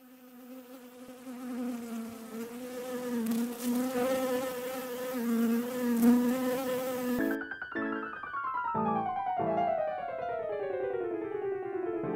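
Background music: a sustained, wavering buzzing tone that cuts off after about seven seconds, then piano playing falling runs of notes.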